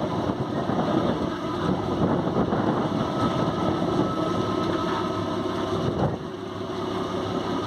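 Boat engine running steadily, a dense rumble that dips slightly about six seconds in.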